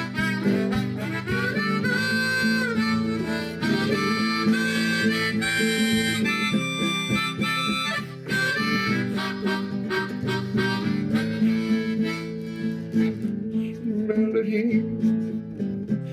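Harmonica playing a melody over strummed acoustic guitar, an instrumental break between sung verses.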